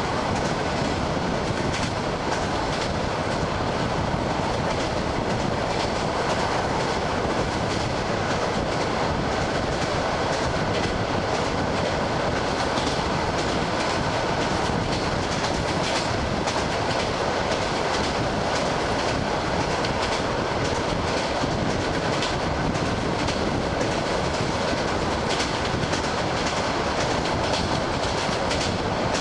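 ED9M electric multiple unit running at speed, heard from inside the carriage: a steady rumble and rush of rolling wheels, with the clickety-clack of the wheels knocking over the rail joints.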